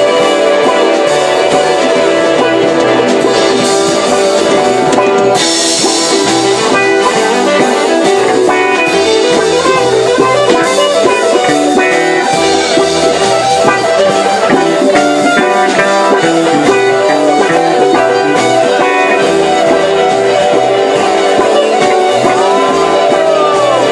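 Live band playing loud instrumental music: guitar over a drum kit and bass, without vocals.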